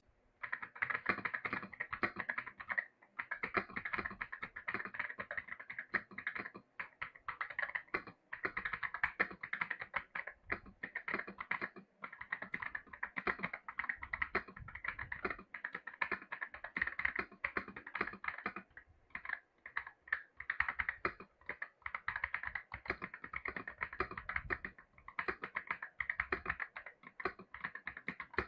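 Fast typing on a YUNZII X98 mechanical keyboard with pre-lubricated switches: a dense, continuous clatter of keystrokes with brief pauses every few seconds.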